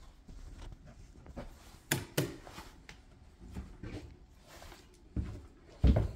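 Footsteps on a hardwood floor: a handful of irregular thuds, two close together about two seconds in and the loudest near the end.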